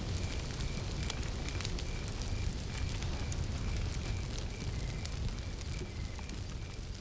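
Wood fire crackling in the tent's stove: scattered sharp pops over a steady low rumble. A faint high pip repeats about twice a second throughout.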